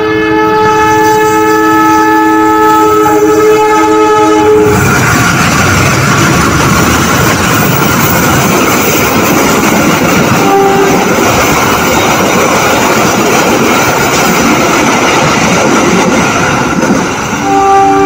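Locomotive air horn holding a long blast on a two-note chord as a passenger train approaches. It stops abruptly and the loud rumble and wheel clatter of the coaches passing close by takes over. A short horn toot comes midway, and the horn chord sounds again near the end.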